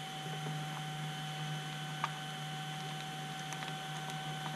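A few faint clicks and light handling sounds of hands arranging wires in a model plane's fuselage bay, over a steady electrical hum.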